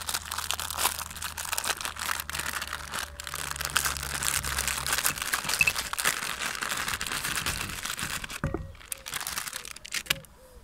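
Foil-lined plastic cookie wrapper crinkling and tearing as it is opened and handled. The crinkling dies down about eight seconds in.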